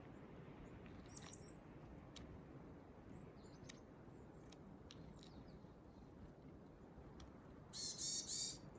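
Wild birds calling: a quick high chirp of three notes about a second in, then a louder, harsh call near the end, over a faint steady hiss.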